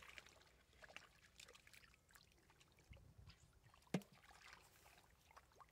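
Faint sloshing and small splashes of hands working through shallow muddy water. About four seconds in comes one sharp knock as a catfish is dropped into a metal basin.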